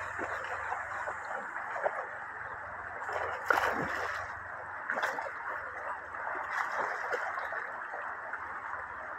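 Steady rushing of a shallow river with splashing from a dog running through the water. The loudest splash comes about three and a half seconds in, with smaller ones a second and three seconds later.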